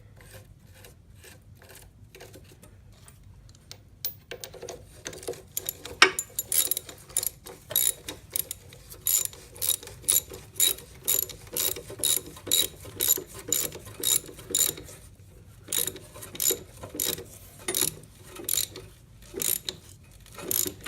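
Ratchet wrench clicking as clamp bolts are tightened down: faint and sparse at first, then about six seconds in a steady run of clicking strokes, roughly two a second, with a short pause about three-quarters of the way through.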